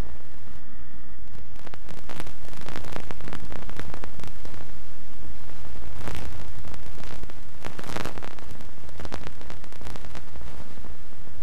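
Loud static hiss with a low buzzing hum from the audio of a damaged VHS tape playing on a VCR. Bursts of crackle come in about two seconds in and are strongest around six and eight seconds, then thin out near the end.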